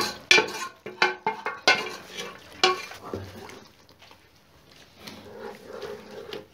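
Pieces of chicken tipped from a steel pot into a karahi of thick tomato masala, with a run of sharp knocks and clatters of the pot and spoon against the pan over the first three seconds. After that, quieter wooden-spoon stirring through the thick gravy.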